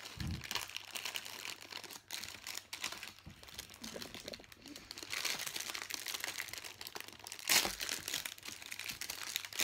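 Plastic Pop-Tarts wrapper crinkling and rustling as hands work it open, with a sharp knock about three quarters of the way through.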